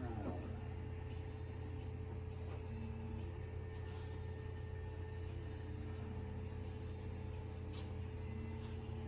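Steady low machine hum with a constant faint tone over it, and faint music playing in the background; a brief rustle right at the start.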